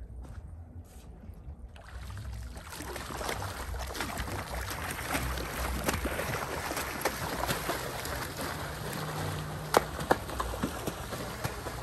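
Water splashing and crackling close to the microphone, starting about two seconds in over a low rumble, with a couple of sharper clicks near the end.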